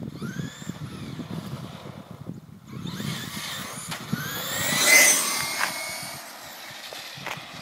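Traxxas Stampede VXL RC monster truck's Velineon brushless motor whining as the truck speeds along, with rising whines as it accelerates. The sound grows louder and peaks as the truck passes close about five seconds in, then fades as it drives away.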